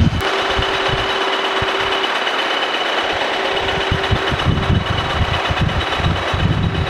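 Kearney & Trecker 2H horizontal milling machine's arbor-mounted cutter milling the bottom face of a cast-iron straight-edge casting: a steady cutting hiss with a low, uneven thudding that comes in about halfway through.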